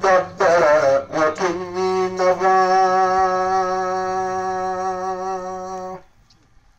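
A man's voice chanting Arabic recitation of the Quran: a quick ornamented run of wavering notes, then one long held note of about four seconds that cuts off about six seconds in.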